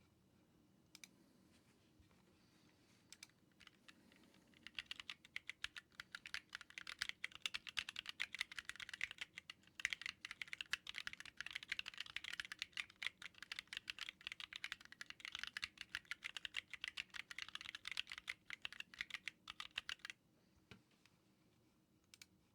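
Fast typing on a Corne split mechanical keyboard: a few scattered key clicks at first, then a steady run of quick keystrokes for about fifteen seconds that stops near the end, followed by a couple of last clicks.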